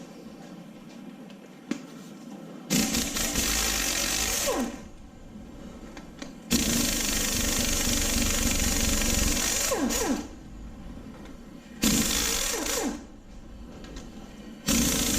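Pneumatic impact wrench run in four bursts of one to four seconds, hammering bolts loose on an engine being torn down. Each burst ends with a falling whine as the tool spins down.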